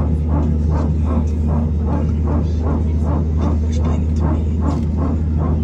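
Airbus A320neo hydraulic power transfer unit barking, heard inside the cabin: a rapid dog-like pulsing of about four beats a second over the steady low hum of the engines while the aircraft taxis.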